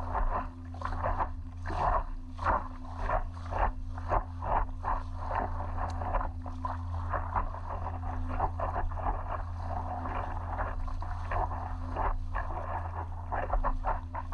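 Water splashing and lapping around an inflatable stand-up paddleboard in short, irregular bursts several times a second, over a steady low rumble.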